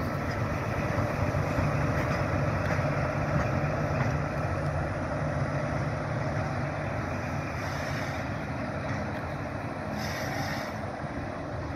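Diesel engine of a Class 43 HST power car running as it moves slowly away, its low drone gradually fading. Two short hisses come about 8 and 10 seconds in.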